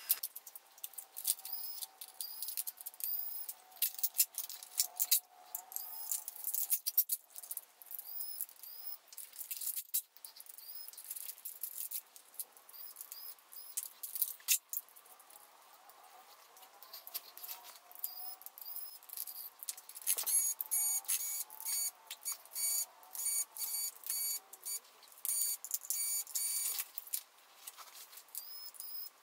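Sped-up timelapse audio of a laptop teardown: rapid clicking and rattling of screws and plastic and metal laptop parts, with short, high, rising whirs from a small electric precision screwdriver.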